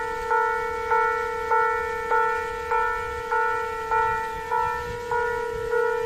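Railway level crossing alarm bell ringing in an even, unbroken rhythm of a little under two strikes a second, each strike ringing on with clear, steady tones: the crossing's warning that a train is coming.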